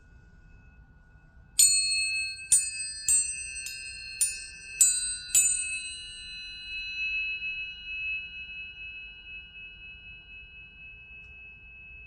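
Planetary tuning forks struck seven times in quick succession, each strike giving a bright metallic ping, then a pure high tone that rings on and slowly fades. A fainter steady tone from an earlier fork hums underneath at the start.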